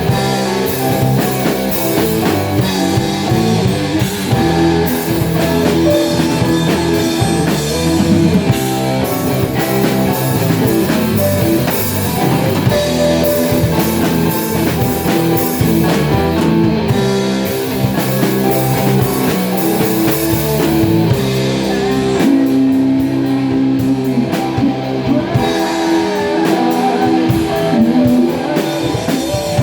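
Rock band playing an instrumental passage: guitars over a drum kit, loud and steady throughout.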